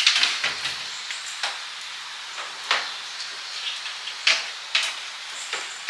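A few light clicks and knocks of objects handled on a kitchen counter, spaced a second or more apart, over a steady hiss.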